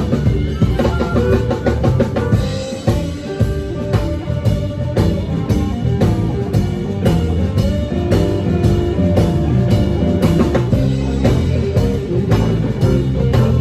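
Country band playing live, with a steady drum-kit beat under guitar.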